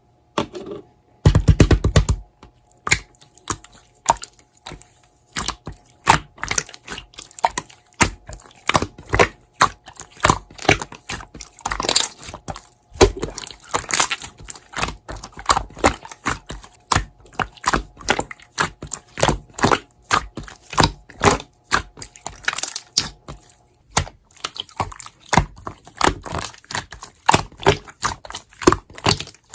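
Toy slime being squished and poked by hand: an irregular run of sticky clicks and crackling pops, with a louder burst of handling about a second in.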